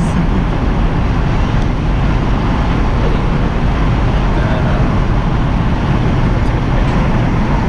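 Steady road and engine noise inside a moving car's cabin, a loud even rumble.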